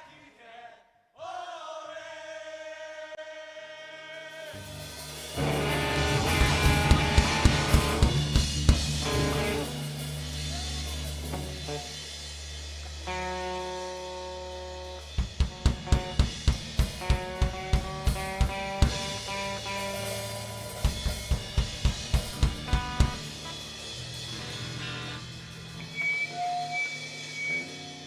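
Live rock band playing a song's instrumental intro: sustained chords ring, a bass part comes in about five seconds in, and the drum kit plays several runs of hard drum strokes.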